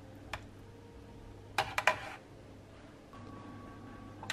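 Metal knife and serving spoon clinking against a foil tray of brisket in gravy: a single click, then a quick cluster of sharp clinks about a second and a half in.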